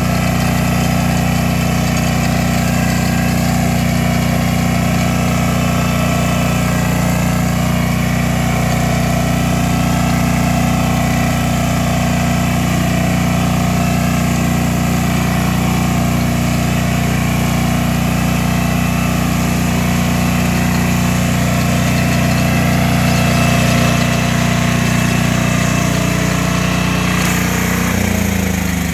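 Walk-behind two-wheel tractor's engine running steadily under load while its rotary ridger cuts a furrow and throws soil into a ridge. The engine note drops near the end.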